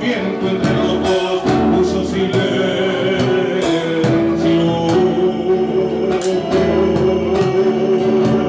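A man singing, accompanied by a strummed nylon-string classical guitar and percussion struck with sticks in a steady beat.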